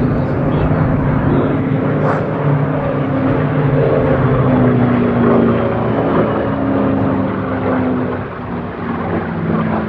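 Curtiss piston-engined warbird fighters flying overhead: a loud, steady propeller-engine drone whose pitch drifts slightly, easing a little about eight seconds in.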